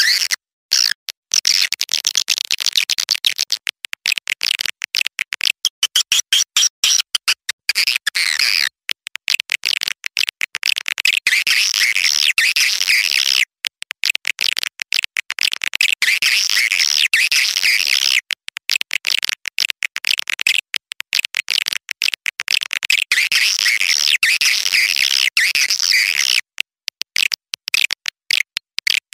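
Recorded call lure of young swiftlets: dense, rapid, high-pitched twittering and chirping, the kind of track played to draw swiftlets into a swiftlet house. The chirping breaks off into brief silent gaps again and again.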